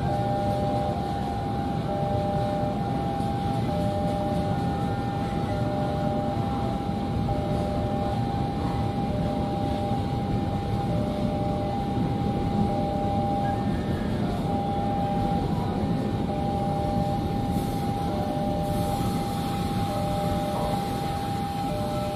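Railway level-crossing warning alarm sounding: a steady tone with a lower second tone pulsing on and off about every second and a half, over the steady rumble of a passing train.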